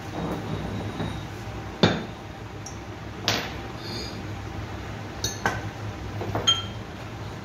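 Metal tools and parts clinking and knocking: about five sharp metallic knocks, each with a brief ringing tone, the loudest about two seconds in.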